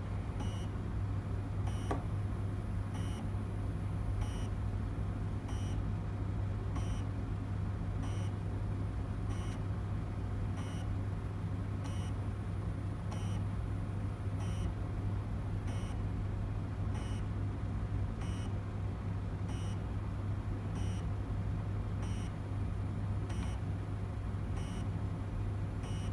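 M3D 3D printer running a motion test: a steady low hum from its motors, with short high chirps repeating evenly a little more than once a second as the print head moves.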